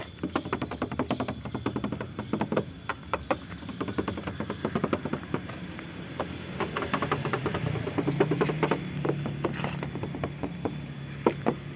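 Knuckles tapping on the steel body panels of a Honda Accord Maestro in quick irregular series, checking the bodywork by sound for places that are bare metal and places that are filled with body filler.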